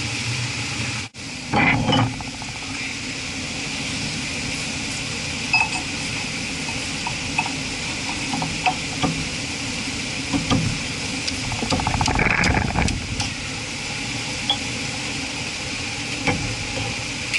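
Scattered metal clinks and scrapes as a new flanged hub and a four-groove cast pulley are handled and slid onto an electric motor's shaft, with a busier clatter of metal about two-thirds of the way through. Under it runs a steady background rush.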